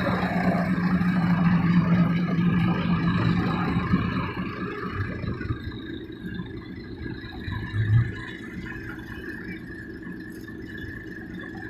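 Dump truck engine running steadily with its tipper bed raised, loud for the first four seconds or so, then easing to a lower idle, with a short louder bump about eight seconds in.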